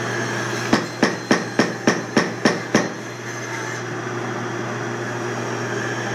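A quick, even run of eight sharp clicks, about three or four a second, from the driver on a long wood screw being driven into a thick wooden board, where the screw is hard to get going.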